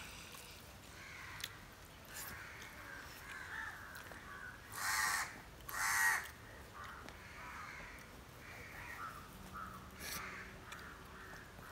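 Birds calling: two loud calls about a second apart near the middle and a fainter one near the end, over faint bird chatter throughout.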